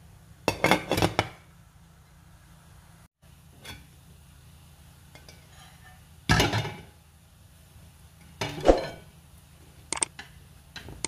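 Clanks and clinks of an aluminium steamer pot and its lid being handled: a cluster of knocks about half a second in, another about six seconds in and more near eight and a half and ten seconds, with quiet room tone between.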